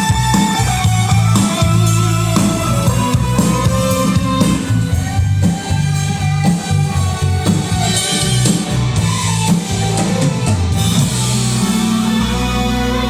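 Live band playing amplified rock-style music at a sound check, with drums over a heavy bass line. About eleven seconds in the drumming stops and a held chord rings on.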